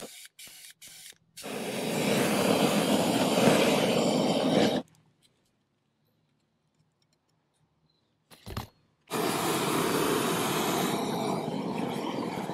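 Roofing torch burning with a steady rushing hiss, heating torch-down membrane around a new scupper, in two stretches of a few seconds each with a short break between them. A few light taps and scrapes of a trowel come before the first stretch.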